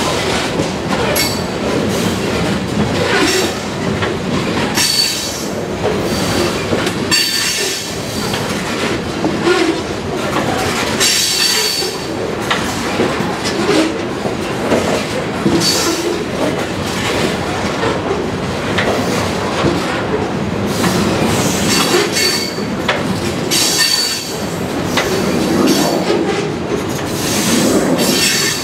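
Freight train's open-top hopper cars rolling past close by: steady rumble with wheels clacking over rail joints, and brief high squeals from the wheels that come and go every few seconds.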